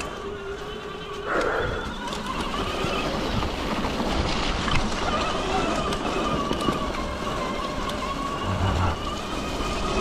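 Electric mountain bike riding on a trail: a motor whine that wavers slowly in pitch over rumbling tyre and wind noise, getting louder about a second in.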